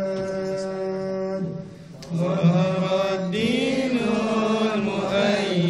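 A single male voice chanting melodic Quran recitation (tilawah) in long held notes. He pauses for a breath about one and a half seconds in, then sings an ornamented phrase that rises and falls.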